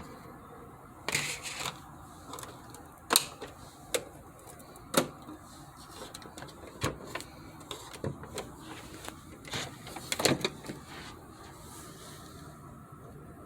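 Cricut Explore Air 2 cutting machine making irregular loud clicks and knocks from its mechanism, the loud noises of a machine that is not loading the mat or cutting. The knocks come in uneven clusters and stop about eleven seconds in.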